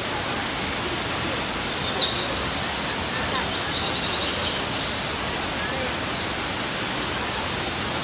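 Steady rushing of Looking Glass Falls, a waterfall pouring over rock. A bird chirps and trills high above it from about one second in, loudest near the start and ending around six seconds in.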